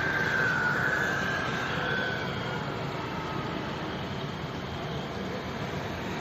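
Steady street noise of traffic, with a faint wavering high tone in the first two seconds that fades out.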